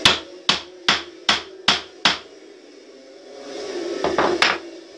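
Hammer blows on wood, knocking a wooden upright down into a board: six quick, sharp strikes about two and a half a second, then two more close together about four seconds in.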